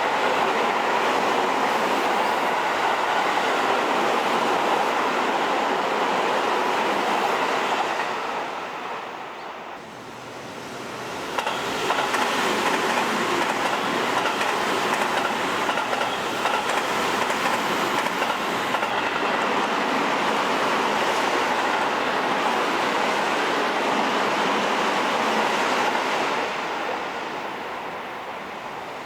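Electric commuter train of Seibu Railway's Lions-livery L-train running by on the rails, wheels clattering over rail joints. The sound dies down about ten seconds in, a second passage of train noise builds up again shortly after, and it fades near the end.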